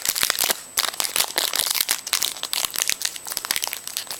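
Trading card pack wrapper crinkling and tearing as it is handled and opened, a dense run of irregular crackles.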